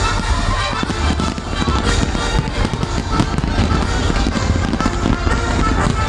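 A dense barrage of aerial firework shells bursting, with many bangs overlapping one another, and music playing underneath.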